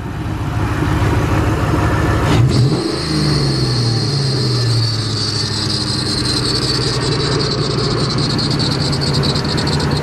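Ford 4.6 modular V8 blipped once about two and a half seconds in, the revs rising and then slowly falling back to a steady idle, with no popping or backfiring on the rev. A steady high-pitched squeal runs over the engine from the rev onward, which the owner puts down to the accessory belt.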